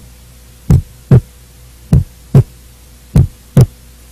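Normal heart sounds heard on auscultation: three lub-dub beats, each a first heart sound (the mitral and tricuspid valves closing) followed about 0.4 s later by the second heart sound (the aortic and pulmonary valves closing), at about one beat every 1.2 seconds, over a steady low hum.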